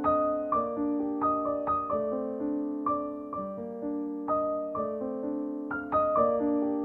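Gentle background piano music: single notes struck roughly twice a second, ringing over sustained lower chords.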